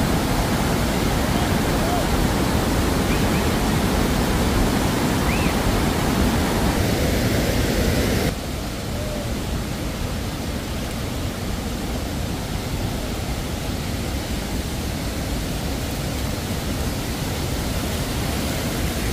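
Steady rush of fast-flowing mountain water. It drops suddenly in level about eight seconds in.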